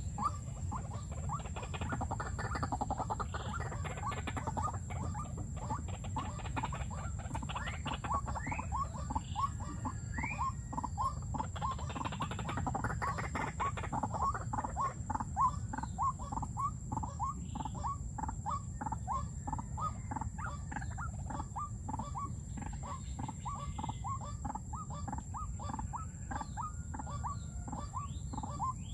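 White-breasted waterhens calling: a long run of short repeated notes, about three a second, over a steady low rumble.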